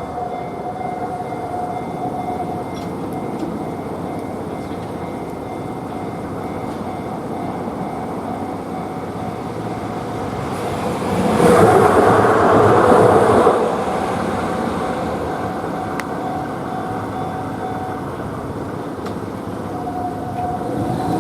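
Hiroshima Electric Railway tram running over a level crossing. Its wheels on the rails swell to a loud rumble for about three seconds midway, then settle back to a steady running sound.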